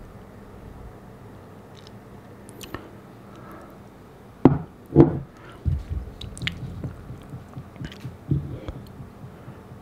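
Close-miked bites into a slice of pineapple-topped pizza: two loud bites about halfway through, then several seconds of wet, squishy chewing.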